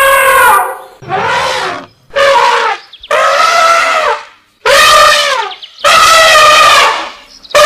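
A string of loud, drawn-out animal wails, about six in all with short gaps between them, each dropping in pitch at its end.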